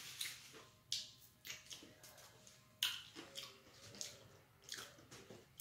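Small paper or plastic packet being handled and opened, crinkling in irregular short crackles and clicks, the sharpest about a second in and near three seconds.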